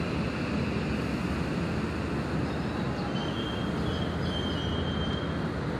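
Odakyu commuter train pulling into the platform and braking to a stop: a steady rumble of the cars rolling past, with a faint high brake squeal a few seconds in as it halts.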